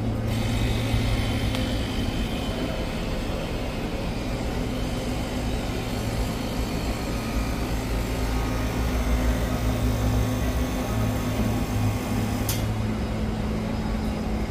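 Water-misting fan system running, its pump humming steadily under the fan's airflow, with a blind plug fitted in place of the balancing nozzle for a stronger spray. A brief click near the end.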